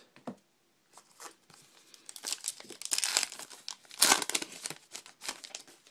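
Foil wrapper of a trading card pack being torn open and crinkled by hand, an irregular crackling that builds from about a second in and is loudest a little past the middle.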